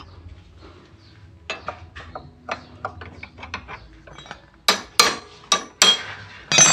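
Steel T-handle socket wrench clinking and clicking against a scooter's cooling-fan bolts as they are undone, with a run of light ticks and then several sharp, louder metallic clinks in the last two seconds.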